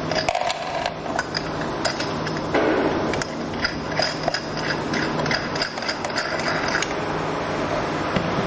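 Irregular small metal clicks and light rattling as a nut is threaded onto a screw and fixed on a traffic light's metal mounting bracket, over a steady low hum.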